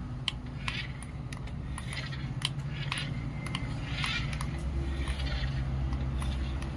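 Toy remote-control cement mixer truck driving: its small electric motor and plastic gears run with a steady low hum. Scattered clicks and short scratchy crunches come from the wheels and drivetrain as it moves over the gritty surface.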